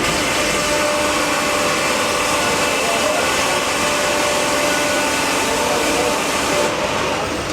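Old sawmill machinery running steadily, a dense mechanical noise with faint steady whines through it; the highest hiss drops away about a second before the end.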